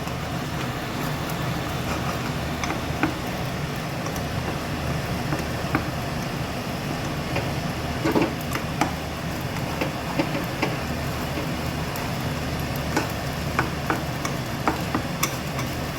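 Egg frying in oil in a hot pan, sizzling steadily while a spatula stirs it, with scattered sharp clicks and scrapes of the spatula against the pan.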